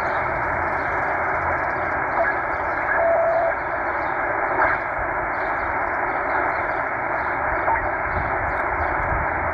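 Tecsun H-501x shortwave receiver in upper sideband mode giving out steady static hiss as it is tuned down between stations, with a short whistle from a passing carrier about three seconds in.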